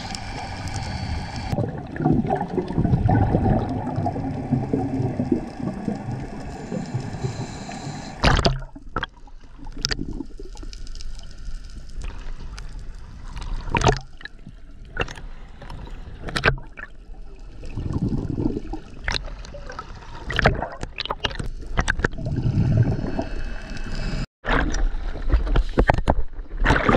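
Underwater bubbling and gurgling, typical of a scuba diver's exhaled bubbles, with scattered sharp clicks. For the first eight seconds or so a steady rumble runs underneath, then it changes abruptly.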